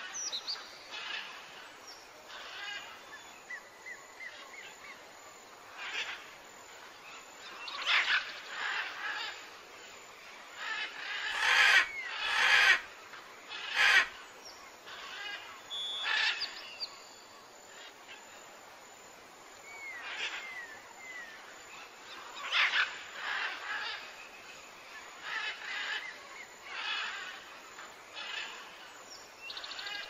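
Forest ambience of wild birds calling and chirping again and again, with a few short gliding chirps. About halfway through come three sharp clicks, the loudest sounds.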